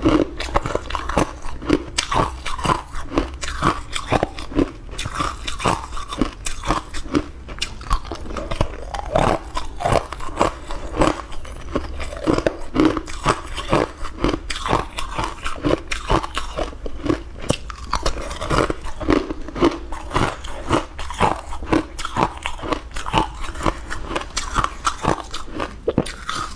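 A person crunching and chewing frozen green ice cubes close to a clip-on microphone: a steady run of sharp, irregular crunches as the ice is bitten and ground between the teeth.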